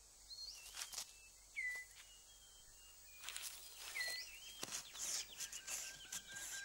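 Dry rustling and scraping of forest-floor leaf litter as a male six-plumed bird of paradise clears his display court. Short curling bird whistles sound every second or two, and a faint steady tone comes in near the end.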